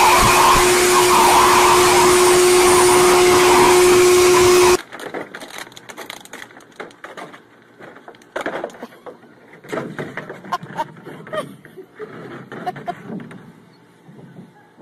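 Loud, steady whir of an electric blower motor with a steady hum, run close over a dog's coat; it cuts off suddenly about five seconds in. Then quieter scattered knocks and scuffs as a puppy clambers at a plastic paddling pool.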